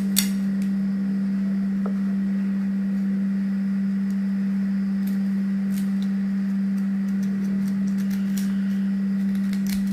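A steady low hum at one unchanging pitch, with a few faint clicks of a kitchen knife cutting a young areca nut.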